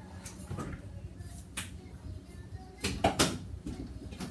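Background music over a steady low hum. About three seconds in, a quick cluster of sharp knocks and clatters as a refrigerator door is opened and the items inside are handled.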